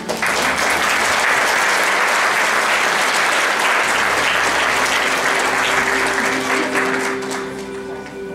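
Live theatre audience applauding, starting suddenly and dying away about seven seconds in, with soft instrumental scene-change music underneath.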